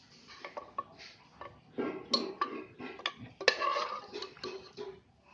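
A metal spoon clinking and scraping against a dish of mutton curry: irregular sharp clinks with short stretches of scraping between them, the loudest clink about three and a half seconds in.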